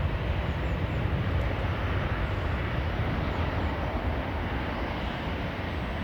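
Jet airliner's engines rumbling loudly as the aircraft passes close by, slowly fading.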